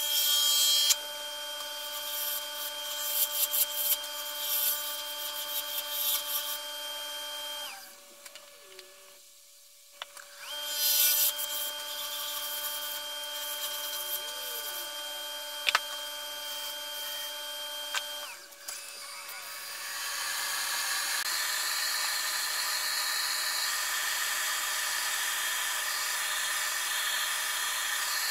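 Wood lathe motor running with a steady whine while a hand-held turning tool cuts a curly maple spindle, the cuts coming as scraping bursts over the hum. The lathe winds down to near quiet about eight seconds in, starts again a couple of seconds later, and shuts off again about two-thirds of the way through, after which a different, hissier steady running sound takes over.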